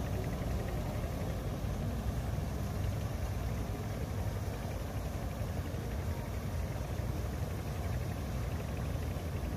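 An engine idling steadily, a low even rumble with no change in speed.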